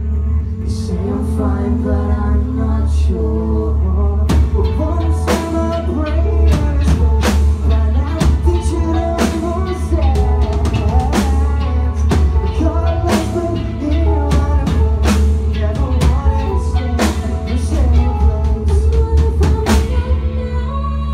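Rock music with a drum kit keeping a steady beat under singing.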